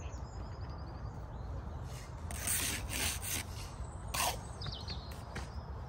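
Bricklayer's trowel scraping mortar on bricks: a few short rasping strokes a couple of seconds in, with one more just past the middle. A bird twitters faintly in the background.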